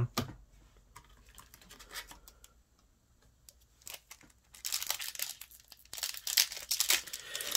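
Foil Yu-Gi-Oh! booster pack wrapper crinkling and tearing as it is pulled open by hand. The crackling starts a bit past halfway, after a few near-quiet seconds of light handling.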